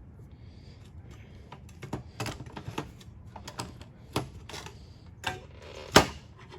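Pliers clicking and scraping against a seized, corroded push-button switch as they try to grip and turn it out of its panel. The sharp metal clicks come irregularly and get louder, with a brief scrape and the loudest snap near the end.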